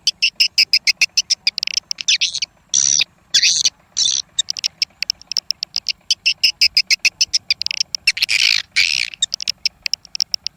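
Swiftlet calls: fast trains of sharp clicking chirps, about seven a second, broken by a few longer twittering calls a few seconds in and again near the end.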